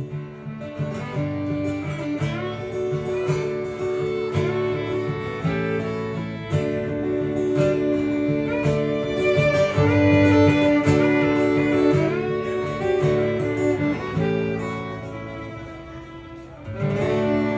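Fiddle and acoustic guitar playing an instrumental outro: a bowed fiddle melody over strummed acoustic guitar chords. The playing softens near the end, then a fresh guitar strum comes in.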